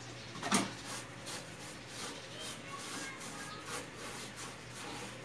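Short rubbing strokes, about two a second, from hand work on a speaker cabinet, with one sharper knock about half a second in.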